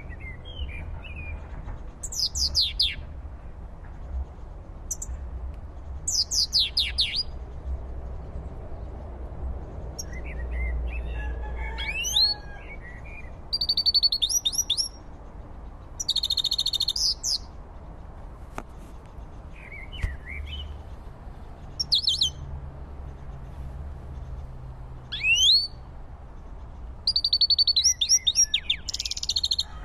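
European goldfinch singing in short bursts of high twittering chirps and trills, with pauses of a second or two between phrases, over a low steady rumble.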